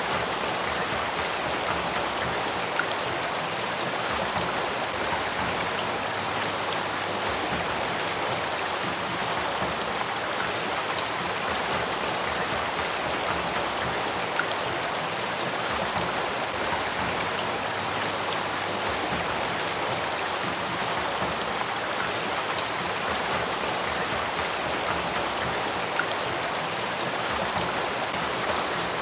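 Spring-fed headwaters stream of the Sacramento River flowing steadily: an even, unbroken rush of water, with a few faint ticks here and there.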